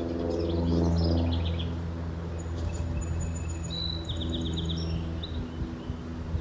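Songbirds chirping and trilling, with short falling trills early on and thin high whistles and a trill in the middle, over a steady low engine hum that swells about a second in.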